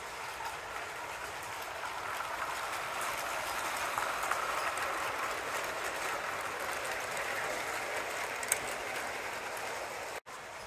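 Toy-brick model freight train rolling past on plastic track: a steady clattering rumble of plastic wheels and wagons that swells as the cars pass close, about four seconds in, then eases off. There is one sharp click about eight and a half seconds in.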